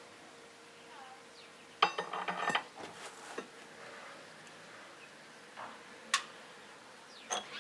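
Metal clinking as the injector fittings on a Perkins diesel engine's cylinder head are handled and loosened during injector removal: a quick rattle of clinks about two seconds in, then single sharp clicks near six and seven seconds.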